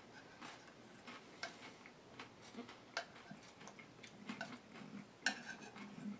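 Metal spoon clicking and scraping faintly against a ceramic bowl as the last of a salad is scooped up, a few light irregular clinks, the loudest a little after five seconds in.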